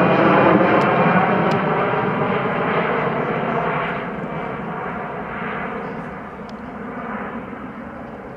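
Jet airliner's engines running at takeoff power: a loud roar with steady whining tones, gradually getting quieter.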